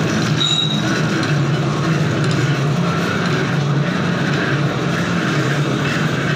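Full-automatic thread rolling machine running: its motor and belt-driven flywheel turning the rolling dies, a steady mechanical hum that swells regularly about once a second.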